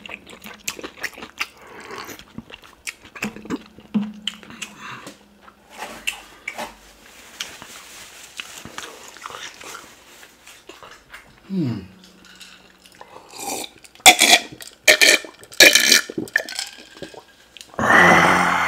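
Close-miked eating of oxtail pepper soup: a plastic spoon clicks against the plastic tub, with slurping, chewing and wet mouth noises. Two low hummed 'mmm' sounds come in, the second falling in pitch. Several loud, sharp breathy exhalations come toward the end, as the pepper's heat hits.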